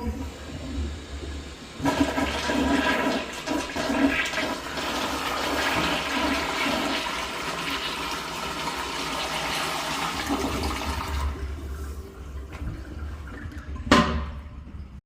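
Rich Plus toilet flushing: a rush of water starts suddenly about two seconds in, runs strongly for around nine seconds, then dies away. A single sharp clack comes near the end.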